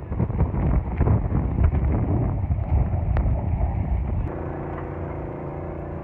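Wind of a wildfire's fire tornado blowing hard across the microphone, a heavy low rumble with scattered crackles and knocks. About four seconds in it gives way abruptly to a steadier, quieter hum with a few held tones.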